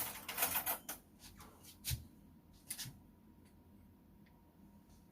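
Onion powder being shaken out of a spice container, a brief hissy rattle in the first second, followed by two short knocks about two and three seconds in.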